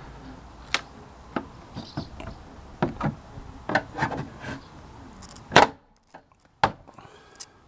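Plastic rear door card being prised away from a car door: scattered clicks, knocks and rubbing of the panel and its plastic retaining clips, with the loudest knock about five and a half seconds in.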